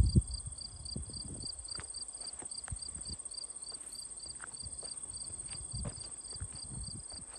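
Crickets chirping in an even rhythm, about three chirps a second, over a continuous high insect trill, with a few faint low thumps.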